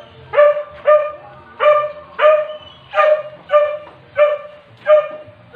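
A dog barking over and over at a steady pace, about nine sharp barks in a row.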